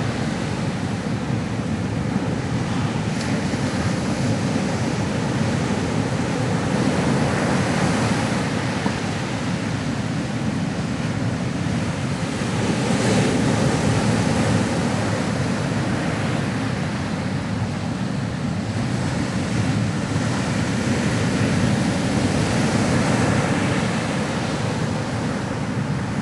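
Ocean surf: a continuous wash of waves breaking on a shore, swelling and easing slowly.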